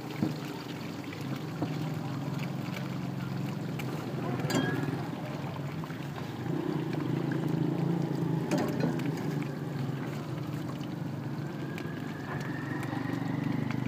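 Egg frying in oil on a flat iron griddle, under a steady low engine-like hum, with a few faint clicks and a faint rising whine near the end.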